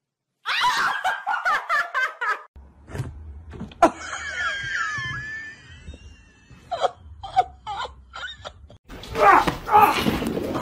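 A person laughing in short bursts, then a quieter stretch with a few light taps over a low hum, and laughter again near the end.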